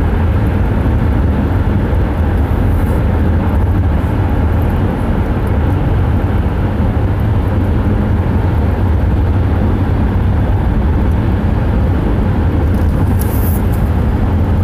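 Steady low rumble of road and engine noise heard inside a moving car's cabin, with a brief high hiss about 13 seconds in.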